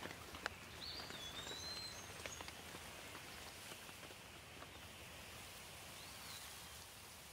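Light rain falling steadily, with scattered close drips, most of them in the first couple of seconds. A bird calls briefly about a second in and again near the end.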